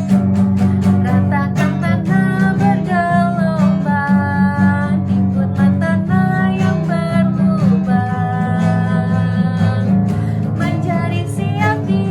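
Worship music: an acoustic guitar strumming under a held low accompaniment, with a pitched melody line above.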